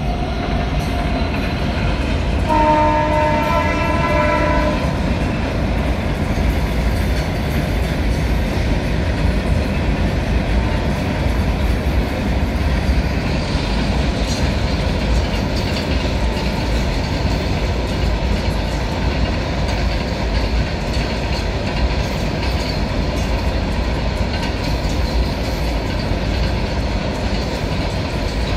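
A passing freight train's wagons run steadily over the rails. A train horn sounds once, a couple of seconds in, for about two seconds.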